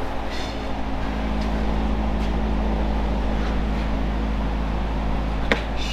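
Steady mechanical hum with hiss from machinery running, with a sharp click near the end.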